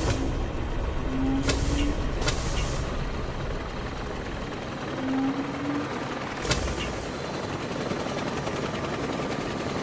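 Auto-rickshaw rigged as a helicopter, its engine and fan rotor running in a steady, noisy din. A few sharp knocks and two short rising tones sound over it.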